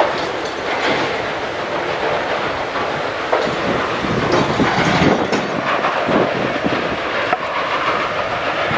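Sawmill machinery running: a steady, dense mechanical din with irregular clanks and knocks from the mill's log and lumber handling.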